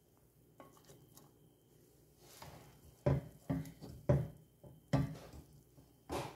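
Plastic spatula stirring and scooping cooked rice in a stone-coated pot. Faint clicks come first, then about five knocks and scrapes of the spatula against the pot in the second half.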